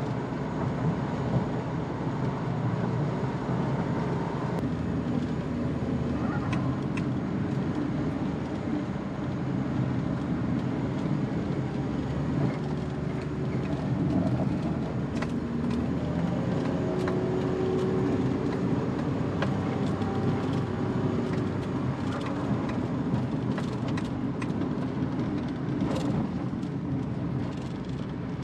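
Suzuki Every Wagon kei van driving at a steady speed along a smooth highway: continuous engine and road noise with no changes of pace, a few faint brief tones and small clicks over it.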